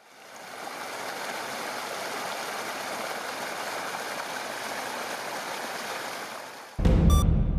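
Steady rushing noise like running water, fading in over the first second. About seven seconds in it is cut off by a sudden, much louder, deep hit of dramatic music.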